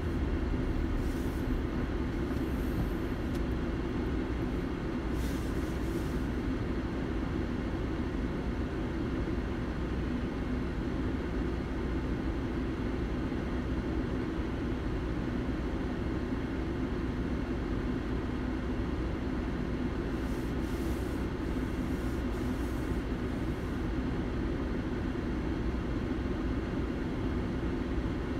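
Steady low rumble and hum inside a car's cabin, with the car stopped in traffic and its engine idling. A few faint hisses come and go.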